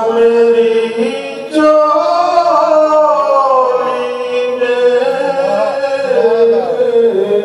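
A man singing a naat (a devotional poem in praise of the Prophet) unaccompanied into a microphone, in long, ornamented held notes. He breaks off for a breath about a second and a half in, and the line falls in pitch near the end.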